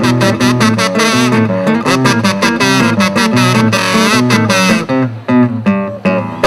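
Acoustic guitar strummed briskly under a wavering melody line. About five seconds in, the strumming thins to a few spaced strokes and a last strum that ends the song.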